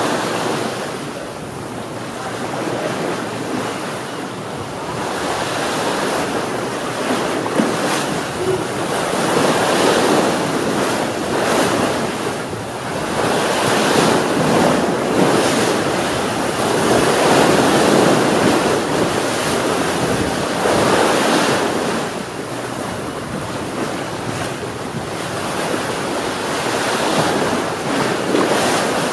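Sea waves breaking and washing on the shore: a continuous rush that swells and eases in slow surges, loudest around the middle.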